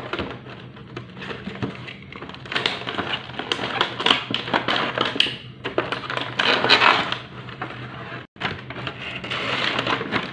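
Stiff clear plastic packaging crinkling, clicking and snapping as hands handle and pry at it, a busy run of small crackles that swells twice in the middle.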